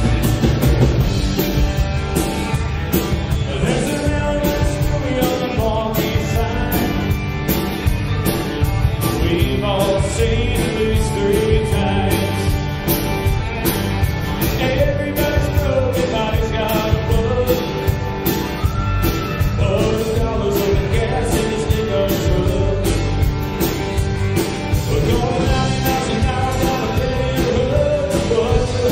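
Country rock band playing live: drum kit, electric and acoustic guitars and bass. A man sings the lead vocal from a few seconds in.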